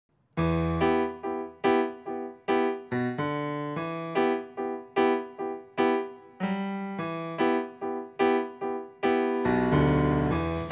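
Solo piano intro: chords struck in a steady rhythm, about two or three a second, each ringing and dying away over a bass line.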